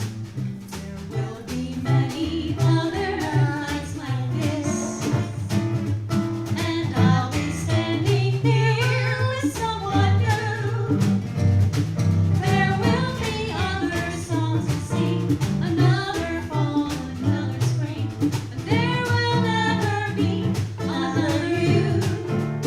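A small live jazz combo playing an instrumental passage: guitar and hand percussion keeping a steady swing beat under a lead melody line.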